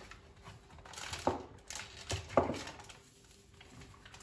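Handling noises: three sharp knocks, one about a second in and two close together just past two seconds, with faint rustling between.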